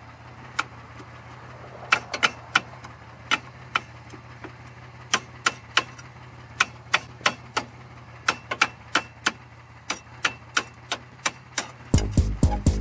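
Car engine running steadily at idle, with sharp irregular clicks or ticks over it, a few a second. Music comes in near the end.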